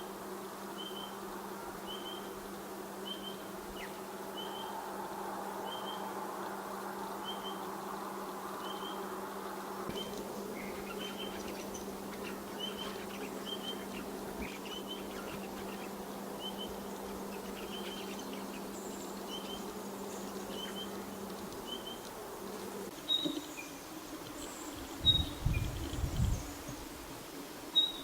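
Spotted pardalote calling: a short, high note repeated steadily about once every two-thirds of a second, over a constant low hum. Near the end a few louder, higher notes sound, along with several loud low bumps.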